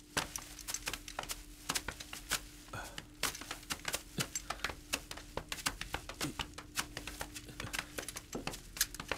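Footsteps scrambling over rocks and through dry brush, with gear knocking: irregular clicks and crackles, several a second, over a faint steady hum.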